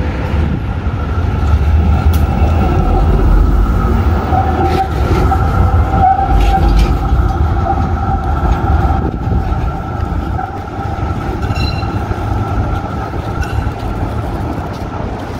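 A B2-class electric tram passing and then moving away: a low rumble of steel wheels on the rails that is loudest as it goes by and then fades, with a steady high whine over it.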